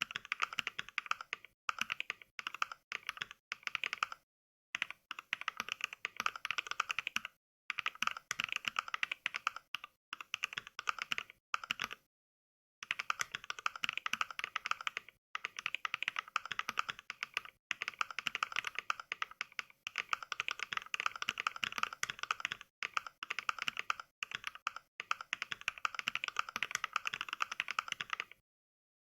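Fast typing voiced by the Mechvibes NK Cream sound pack: sampled clacks of NK Cream mechanical switches, one per keystroke, in quick runs broken by brief pauses. There is a longer pause a little before halfway, and the typing stops shortly before the end.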